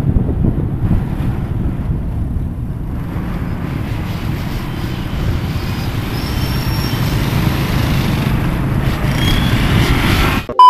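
Riding a motorcycle through slow city traffic: a steady low rumble of the bike and the vehicles around it.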